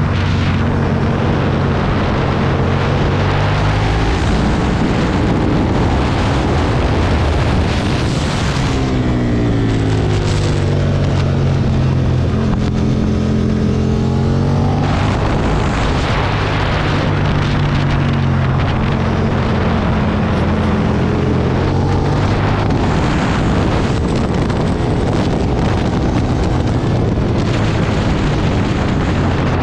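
Motorcycle V-twin engine of a 2009 Aprilia Tuono being ridden hard, its revs rising and falling with throttle and gear changes. Wind rushes over the microphone at speed.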